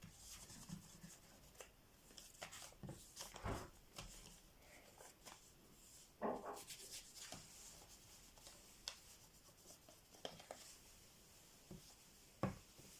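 Faint rustling and rubbing of folded white paper being handled and pressed as its sides are glued together, with a few soft taps scattered through.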